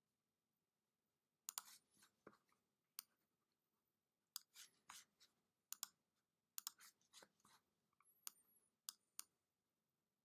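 Faint, scattered computer mouse clicks in irregular clusters, some in quick pairs, over near silence.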